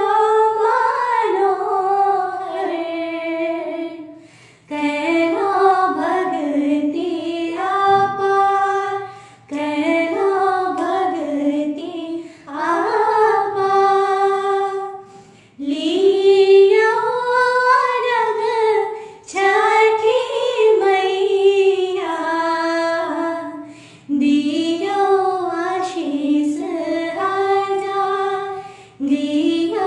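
Two women singing a Chhath festival folk song unaccompanied, in sung phrases of a few seconds each with short breath pauses between them.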